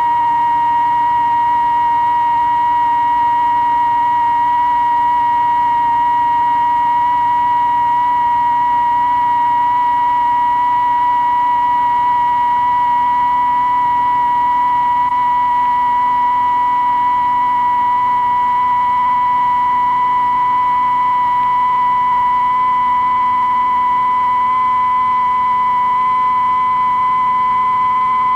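Electronic sine-wave tone, loud and unbroken, its high pitch creeping slowly upward as part of a very long rising glissando. A fainter lower tone drifts slowly down beneath it.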